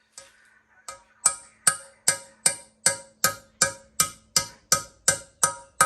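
Hammer tapping a 12mm socket to drive valve stem seals down onto the valve guides of a Ford single-cam cylinder head: a run of sharp, ringing metal taps, about two and a half a second.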